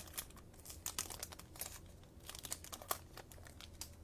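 Foil trading-card pack wrappers crinkling and tearing open as the packs are ripped and handled, with faint, irregular crackles.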